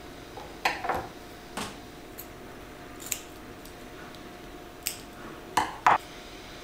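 Paper masking tape pulled off its roll and snipped with scissors: a few short rasps and crisp clicks with light knocks on a wooden table, the loudest pair near the end.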